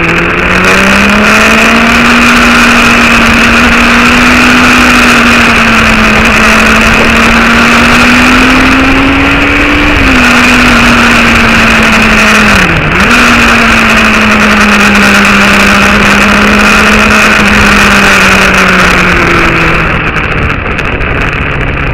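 Motorcycle engine running at speed under loud rushing wind noise. The engine pitch rises just at the start, holds steady, and drops briefly about 13 seconds in, as in a gear change, before settling again.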